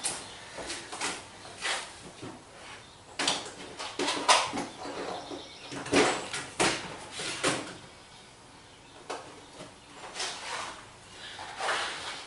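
A drawer of hardware being opened and rummaged through for screws: irregular knocks and rattles, with a quieter stretch in the middle.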